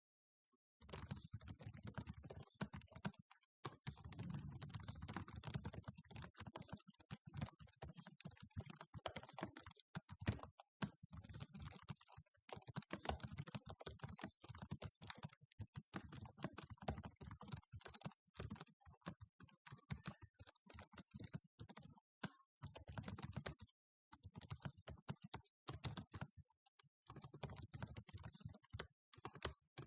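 Fast typing on a computer keyboard at about 108 words per minute: a rapid, continuous patter of key clicks that starts about a second in, with a few brief pauses.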